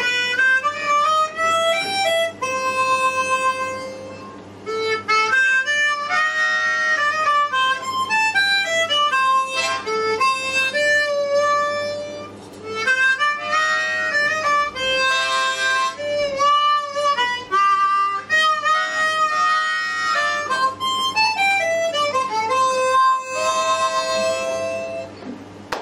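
Solo harmonica playing a blues tune in phrases with short breaks between them, mixing held single notes and chords with notes that slide up and down in pitch.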